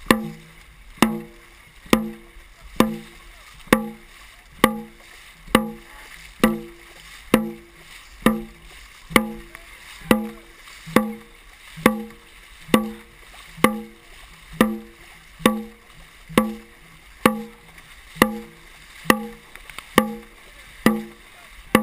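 Dragon boat drum struck steadily, about one beat a second, each beat a short, pitched, ringing boom, calling the paddlers' stroke rate. Water rushes and paddles splash between the beats.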